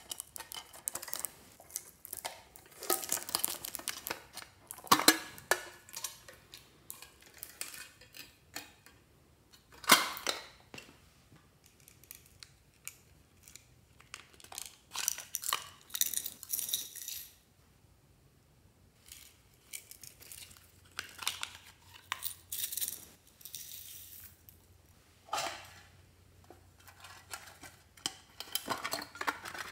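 Small tin and plastic toy boxes being handled and opened by hand: scattered clicks, taps and rattling of metal and plastic, with the sharpest knocks about five and ten seconds in.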